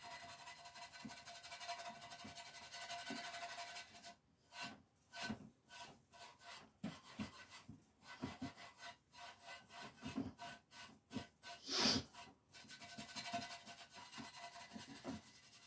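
Steel wool buffing a waxed lamp finish by hand: faint rubbing that turns into short back-and-forth strokes at about two a second after the first few seconds, with one louder stroke past the middle.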